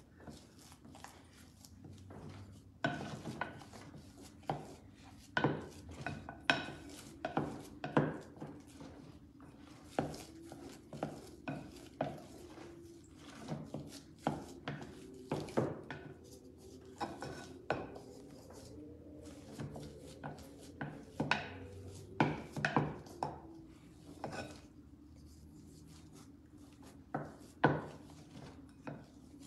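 A spoon knocking and scraping irregularly against a pot as gari and hot water are stirred and mashed into thick eba dough, with a quieter spell a little before the end. A faint steady hum lies underneath.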